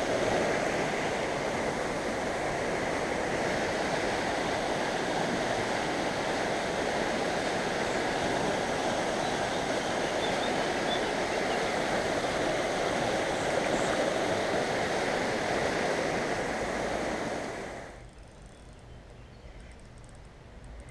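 Shallow river water rushing steadily over stones close by. About three seconds before the end it drops suddenly to a much fainter hush.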